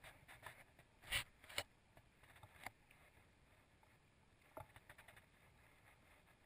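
Near silence broken by a few sharp clicks and knocks of gear being handled close to the microphone: two loud ones about a second in, another a second later, and a small cluster past the middle.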